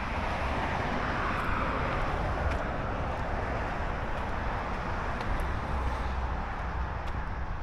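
A car passing by on the road: its tyre and engine noise swells over the first couple of seconds and fades away. Low wind rumble on the microphone runs underneath.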